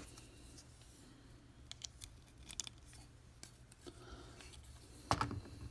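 Faint clicks of a plastic Transformers action figure's parts being folded and handled, with a louder bump of handling about five seconds in.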